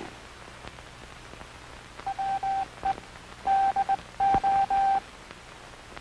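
Morse code sent as a single steady beeping tone, spelling out the words 'WE DO' (di-dah-dah, dit, dah-di-dit, dah-dah-dah) in short dots and longer dashes. The keying runs from about two seconds in to about five seconds in.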